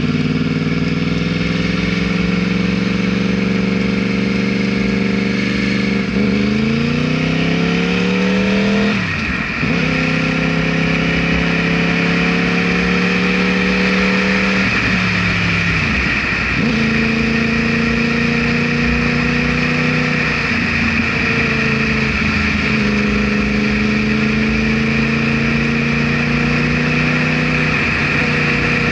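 Yamaha R1 sport bike's inline-four engine running under way. The revs climb and then fall back sharply at several gear changes, most clearly about a third of the way in and again past the middle.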